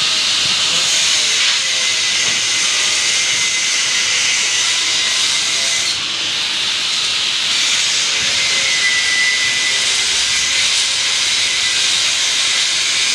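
Steady, loud hiss, dipping briefly about six seconds in.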